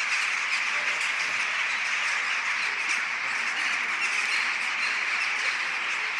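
A large flock of birds calling all at once: a steady, dense din of squawking chatter with no pauses.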